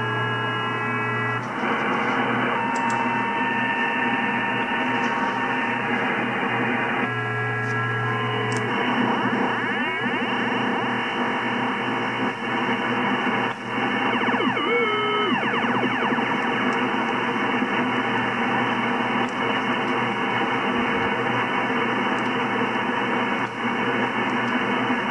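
ICOM IC-7410 HF transceiver receiving in USB on the 10-metre band: a dense, steady hiss of very strong interference, with whistling carrier tones heard as the dial is tuned. Steady whistles come and go in the first nine seconds, and a group of tones slides in pitch about fifteen seconds in.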